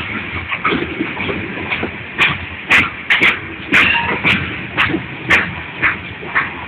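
Covered hopper cars of a freight train rolling past close by: a steady rumble of wheels on rail, with short, sharp wheel sounds repeating about twice a second from about two seconds in.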